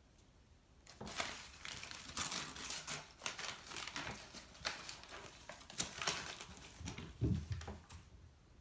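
Newspaper crinkling and tearing as a cat claws and bites it, in irregular rustling bursts that start about a second in and stop near the end. A dull thump about seven seconds in is the loudest moment.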